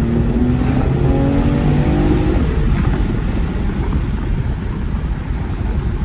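2018 Mercedes-AMG E43's twin-turbo V6 accelerating hard, its pitch climbing and dropping back twice as the gearbox upshifts. About two and a half seconds in the engine note fades under steady wind and road noise through the open windows.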